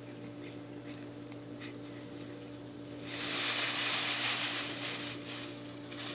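Dry straw rustling and crackling as a huskimo puppy burrows through a pile of it, with a few faint crackles at first, then loud for a couple of seconds starting about halfway in, and another short burst near the end.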